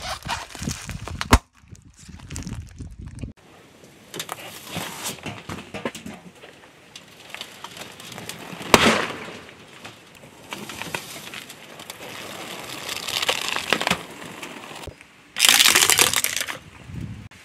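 Car tyre rolling over and crushing a series of objects on asphalt. A carton of marshmallows squashes with a sharp knock, and an inflated balloon bursts with a loud bang about nine seconds in. Near the end a hard plastic toy cracks and crackles loudly for about a second and a half.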